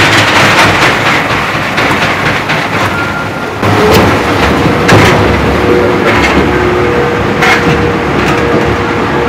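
Mine train car running through a tunnel: a loud, steady running noise with scattered knocks, joined about four seconds in by a steady two-note hum.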